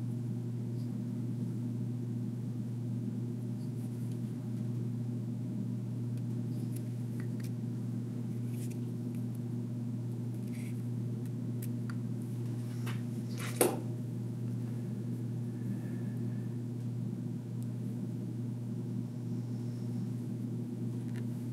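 A steady low hum, with a few small clicks and taps of pliers and solder wire being set on the pistons of an open engine block; one sharper click comes a little past the middle.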